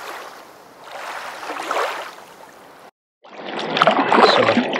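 A swelling rushing noise, then a short break, then kayak paddle blades dipping and splashing in sea water, with drips and small knocks. The splashing is the loudest part.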